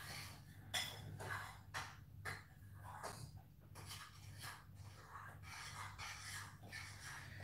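Faint breathing of a person resting after exercise, over a steady low hum.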